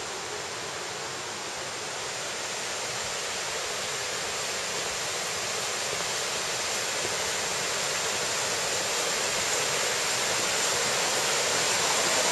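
Rushing mountain stream tumbling over rocks, a steady roar of water growing gradually louder as it is approached.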